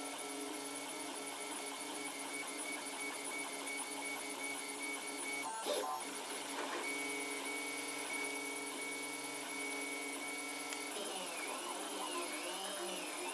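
Stepper motors of a Protomaker Black Sprint 3D printer whining steadily as it prints, with a short click about halfway through. Near the end the whine glides up and down in pitch several times.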